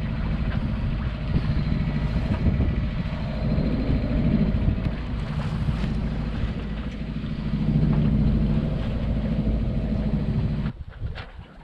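A steel sailboat's engine running steadily under way, with wind and water noise. It drops away abruptly near the end, leaving quieter wind and water.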